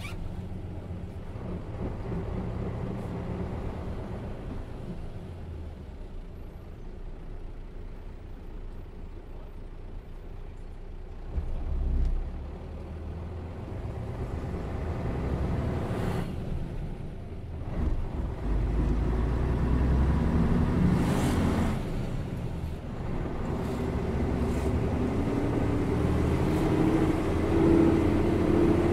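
Mercedes-Benz O407 bus's diesel engine, heard from on board, running while the bus drives. A short hiss about sixteen seconds in. The engine grows louder in the second half, with a rising whine near the end as the bus accelerates.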